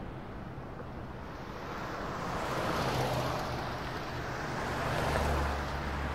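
Outdoor background noise: a steady hiss over a low hum. It grows louder about two seconds in, and a deeper hum joins near the end.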